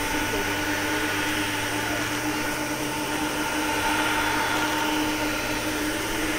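Boeing 747-400F's four jet engines running at low taxi thrust as it rolls slowly onto the runway: a steady whine of several held tones over a rushing hiss.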